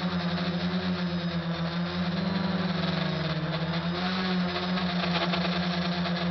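SK450 quadcopter's four brushless motors and propellers buzzing steadily in flight, heard from a camera on board; the pitch wavers briefly about halfway through as the throttle changes, then settles.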